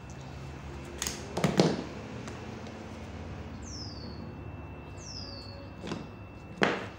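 Metal snips cutting through thin two-core lamp cord: a few sharp snips about a second in, and two more clicks near the end.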